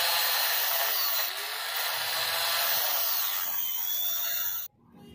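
Angle grinder fitted with a core bit, boring a hole into concrete: a loud, steady, high-pitched grinding that cuts off suddenly near the end.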